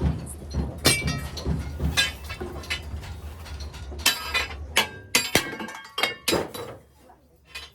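Steel clinking and ringing as metal parts or tools strike each other: about seven sharp, irregular clinks, with a low hum underneath that stops about halfway through.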